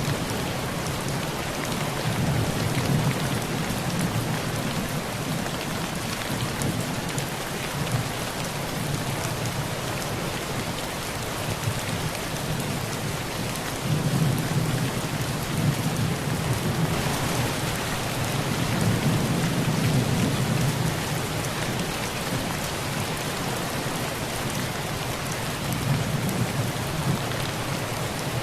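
Heavy rain drumming on a metal tin roof, with thunder rumbling in low swells that come and go, strongest about halfway through.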